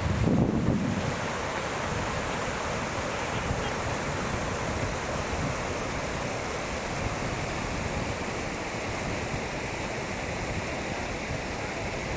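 Steady rush of falling water at a waterfall, with wind buffeting the microphone, a low gust strongest in the first second.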